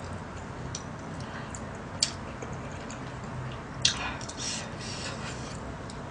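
A few soft clicks and taps of a spoon against a pot and bowl while eating, the sharpest about four seconds in, over a steady low room hum.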